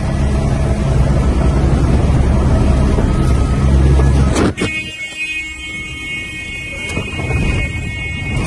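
Helicopter rotor and engine noise heard from inside the cabin, a pulsing low drone, cut off by a sharp crash impact about four and a half seconds in as the helicopter hits the ground. After the impact the rotor sound is gone and a steady high-pitched tone carries on.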